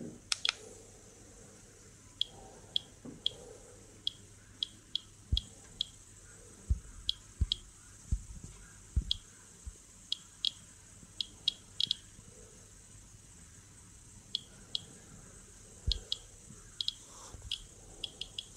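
Geiger–Müller dosimeter clicking at random intervals, roughly one to two clicks a second, each click one detected particle at a natural-background count rate. A sharper click comes just at the start as a thumb presses the front button, and a few soft knocks come from the case being handled.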